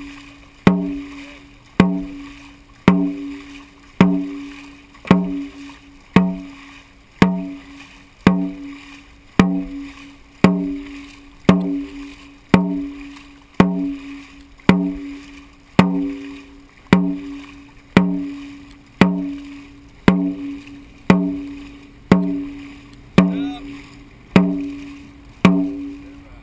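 Dragon boat drum with a studded hide head, beaten in a steady stroke rhythm of about one strike a second. Each beat rings with a short low tone. The drumming stops just before the end.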